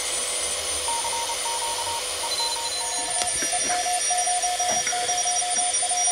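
Morse code (CW) signals received on a modified Pixie 2 QRP transceiver on the 30 m band, played through a small speaker over steady band hiss. A keyed beeping tone starts about a second in, and a lower-pitched second signal takes over about three seconds in.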